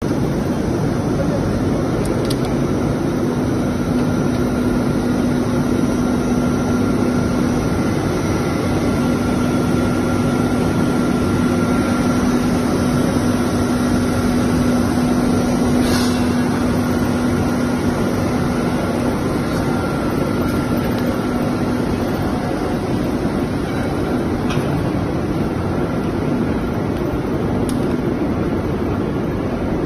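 PVC profile extrusion line running: a steady machine noise with a constant low hum and a fainter higher tone, broken by a few sharp clicks, the loudest about halfway through.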